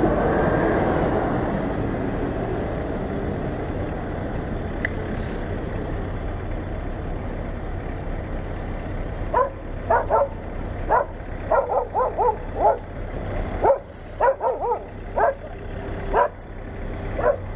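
Street traffic noise, then from about halfway through a dog barking sharply and repeatedly in quick runs of yaps.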